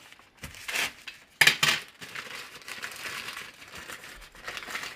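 Plastic bag of icing sugar crinkling as it is handled and opened by hand, with louder crackles about a second and a half in.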